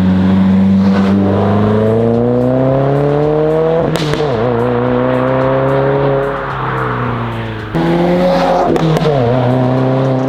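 Subaru WRX turbocharged flat-four exhaust under acceleration: revs climb steadily for about four seconds, drop sharply as at a gear change, then hold and pull again with two more brief dips.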